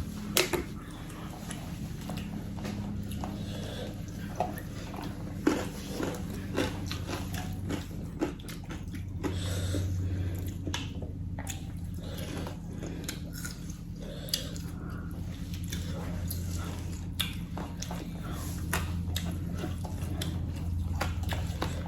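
People chewing and biting into spicy chicken, with scattered sharp clicks and smacks of eating. A low steady hum runs underneath.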